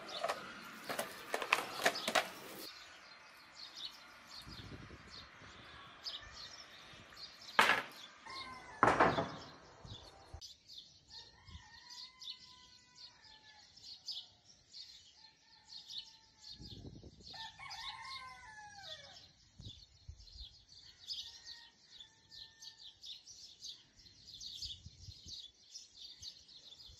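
Birds chirping continuously, with several longer, bending calls from fowl such as a rooster. Two sharp knocks stand out about eight and nine seconds in.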